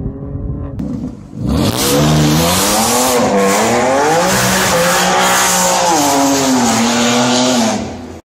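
BMW M4's twin-turbo straight-six revving hard with tyres squealing under wheelspin, the engine pitch wavering up and down for about six seconds; it starts abruptly about a second and a half in and fades out near the end. Before that, a car engine running at a steady pitch.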